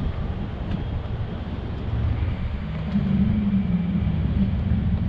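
Motor yacht's engines running with a steady low hum as it manoeuvres to swing its stern round. The hum grows louder about two seconds in, and a higher tone joins about a second later as more power is applied.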